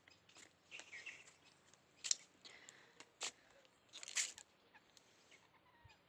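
A few sharp clicks over faint background noise, the loudest about two seconds in, with others about three and four seconds in.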